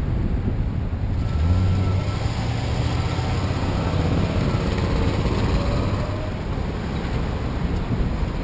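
Pickup truck engine running close by, a steady low hum that sets in about a second in, over traffic and wind noise on the microphone.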